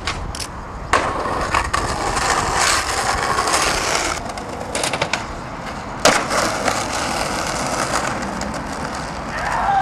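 Skateboard landing a jump down a stair set with a sharp slap about a second in, then its wheels rolling on rough tarmac. A second sharp clack of the board comes about six seconds in, followed by more rolling.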